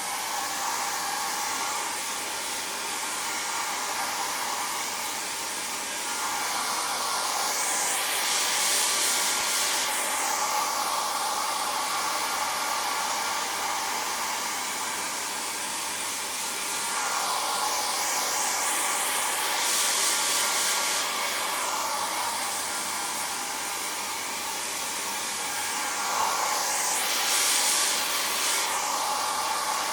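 Hair dryer running continuously: a steady rushing hiss over a hum. The hiss swells and fades three times.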